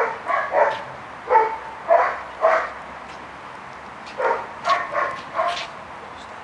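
A dog barking in short yaps: a run of about five in the first few seconds, then four more after a brief pause.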